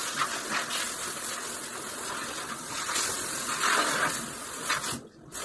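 Hand-held bidet sprayer spraying a steady jet of water around the toilet and tiled floor, cutting off sharply near the end.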